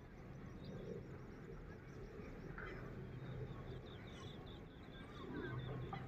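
Small birds chirping in quick repeated notes, over a low steady hum that grows louder near the end.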